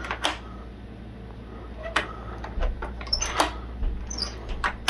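Scattered sharp metallic clicks and faint squeaks from a doorknob lock being worked with a knife blade inserted in its keyway as a key.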